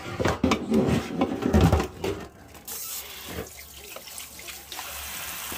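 Water from a kitchen faucet running steadily into a stainless steel pot, starting about two and a half seconds in. The pot of pork belly and aromatics is being filled with water for boiling.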